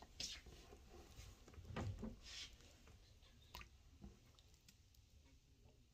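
Faint squishing of paint-mixed slime being kneaded and pulled apart by fingers on a wooden table: soft, sticky squelches, mostly in the first two seconds, with a couple of small ticks later.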